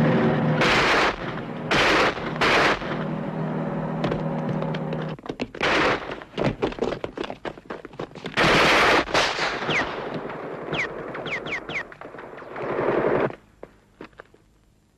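Gunfire sound effects on a 1969 TV drama soundtrack: bursts of machine-gun fire and rapid shots, with several short falling whistles a little past the middle. A steady drone runs underneath and cuts off about five seconds in, and the firing stops shortly before the end.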